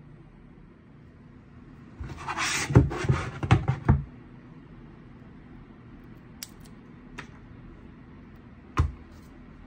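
A Glorious Lube Station being taken apart by hand: its plates scrape and clack against each other for about two seconds, with several sharp knocks. A few light clicks follow, and there is one firmer knock near the end.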